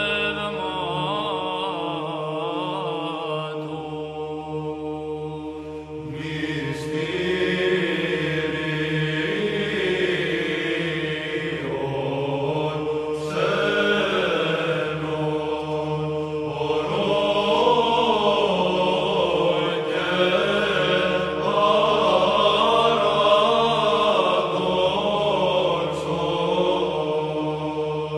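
Orthodox Byzantine choir chanting a Greek Christmas hymn: a moving melodic line sung over a steady held drone note (the ison), with new phrases entering about 6 and 13 seconds in.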